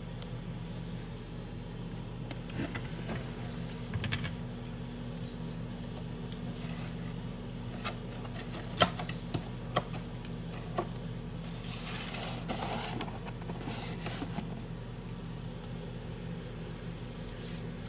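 Microwave oven running with a steady low hum, with a few light clicks and knocks, the loudest about nine seconds in.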